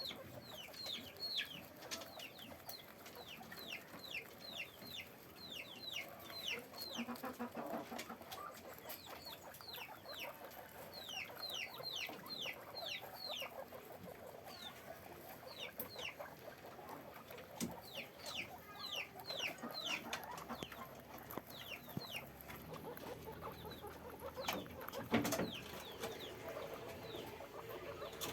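A group of guinea pigs squeaking: runs of short, high squeaks that fall in pitch, several a second, over lower chattering and rustling, with a sharp knock near the end.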